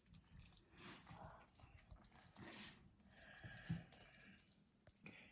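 Near silence, with a few faint soft clicks and rustles.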